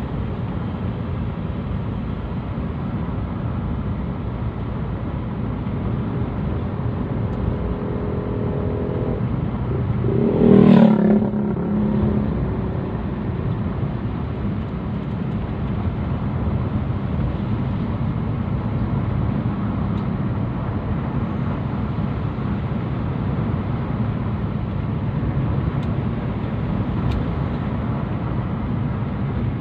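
Car driving at a steady speed heard from inside the cabin: steady engine and tyre noise on the road, with one brief louder pitched sound about ten seconds in.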